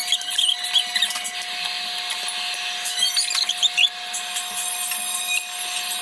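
A metal fork scraping and clinking against a ceramic plate while picking up rice, with short squeaks of metal on ceramic, over a faint steady hum.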